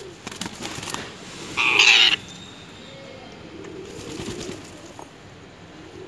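A parakeet flapping its wings in quick flurries, then one loud harsh squawk about a second and a half in, lasting about half a second. Pigeons coo low in the background.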